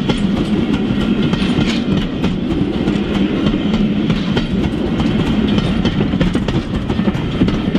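OO gauge model goods wagons rolling along the track. A steady rumble is laced with rapid, irregular clicking of small metal wheels over the rail joints.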